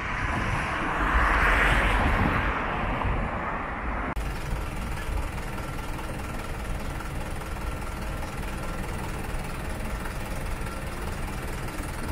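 Street traffic. A vehicle passes, swelling and fading over the first three seconds, then after an abrupt cut about four seconds in comes a steady hum of slow city traffic with a faint high whine.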